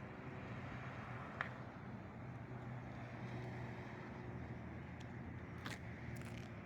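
Steady low hum of a car engine in a parking lot, with a few short sharp clicks.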